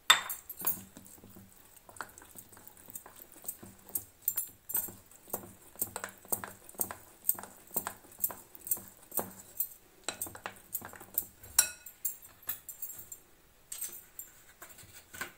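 Steel spoon clinking against a glass mixing bowl as cake batter is stirred by hand, a steady run of light clicks about two or three a second, with one louder knock at the start.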